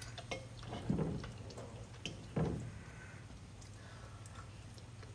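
Knife and fork clicking and scraping on a ceramic dinner plate. Two louder low rumbling sounds come about a second and a half apart, over a steady low hum.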